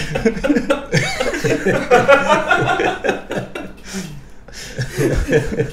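Men laughing and chuckling together. The laughter is fullest for the first three seconds, then thins to scattered chuckles.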